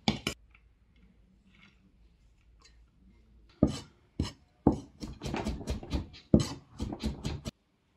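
Two sharp knocks of a cleaver at the start, then a cleaver chopping garlic on a thick wooden chopping block: a few single strokes about three and a half seconds in, quickening into rapid chopping that cuts off abruptly near the end.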